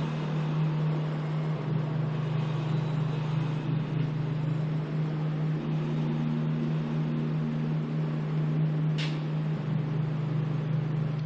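Steady low drone at one pitch with a faint hiss over it, and a brief high swish about nine seconds in.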